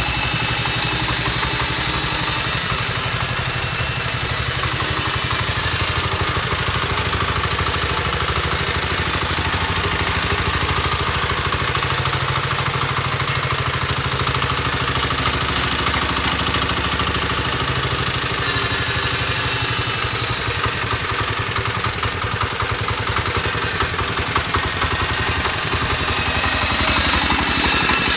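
Kentavr 1010E walk-behind tractor's single-cylinder diesel engine running steadily with a mechanical clatter, a little louder near the end.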